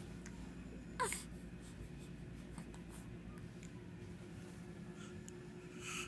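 A newborn baby's single short squeak, falling in pitch, about a second in, and a brief breathy exhale near the end as she yawns, over a steady low hum.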